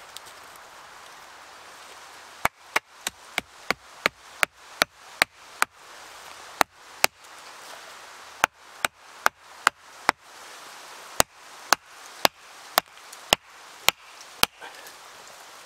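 Axe chopping wood: a long series of sharp, separate strikes, about two to three a second, in runs broken by short pauses.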